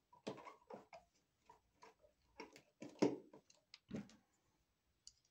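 Irregular clicks and knocks of a duplex electrical receptacle and its wires being handled and worked into an electrical box, about a dozen in the first four seconds, the loudest about three seconds in, then two faint ticks near the end.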